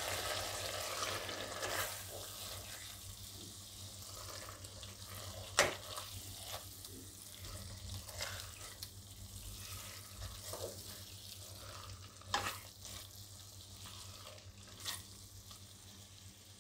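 Silicone spatula stirring cauliflower florets through a thick tomato-onion gravy in a metal pan: soft, wet stirring with about five light knocks of the spatula against the pan.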